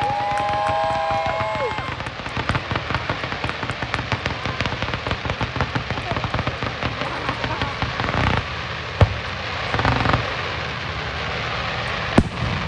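Fireworks display: a few whistling tones in the first two seconds, then a dense crackling of many small cracks for several seconds, and two sharp single bangs near the end.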